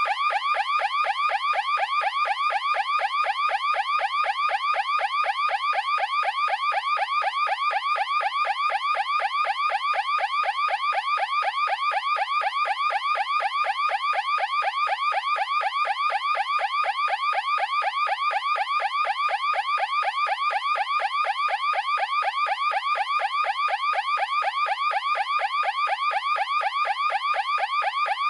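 Electronic anti-theft alarm siren sounding a fast, steady warble: short rising chirps repeating several times a second without a break.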